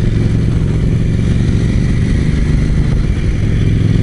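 KTM 790 Duke's parallel-twin engine pulling steadily at an even, moderate pace along the road.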